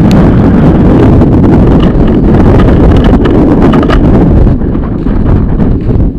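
Strong gale wind buffeting the microphone: a loud, low, rumbling roar that eases slightly about four and a half seconds in.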